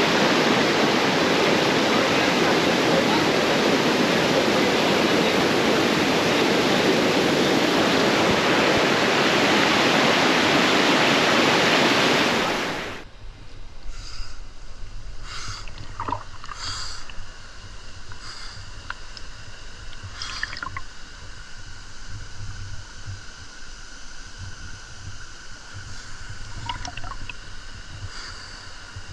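Loud, steady rush of a waterfall pouring into a swimming hole, which cuts off abruptly about thirteen seconds in. After that only a quieter low rumble remains, with faint steady high tones and a few soft clicks.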